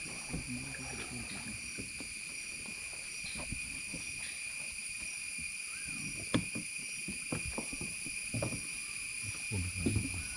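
Cicadas droning steadily, a high, even shrill with fainter higher tones above it. Scattered soft knocks and splashes of kayak paddles underneath.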